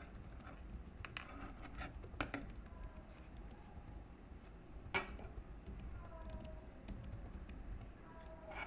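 A few scattered keystrokes on a computer keyboard, quiet and irregular, with the sharpest click about five seconds in.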